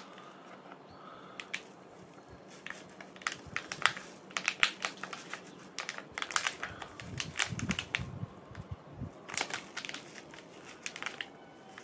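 Plastic spice packets crinkling and crackling as they are handled, in several short bouts.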